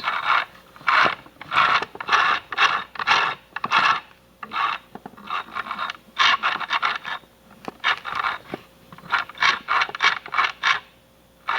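Irregular scraping and rubbing strokes on the plastic insides of an opened-up toy sewing machine, as its parts are worked at by hand, with a few sharp clicks.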